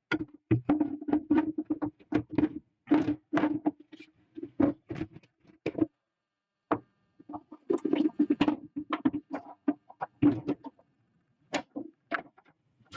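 Hands working on a desktop computer's metal chassis and plastic parts: many irregular clicks, knocks and rattles, broken by short pauses about six and eleven seconds in.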